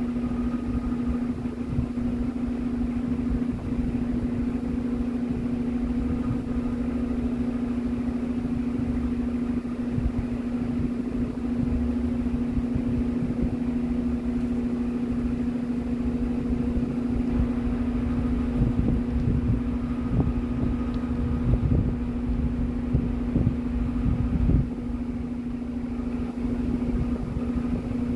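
Steady mechanical hum of a running motor, one constant pitch with a low rumble beneath it.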